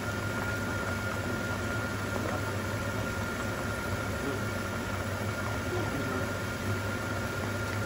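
Pork intestines (bulaklak) deep-frying in a pan of oil: a steady, dense sizzle and crackle of bubbling fat. A thin, steady high tone and a low hum run under it.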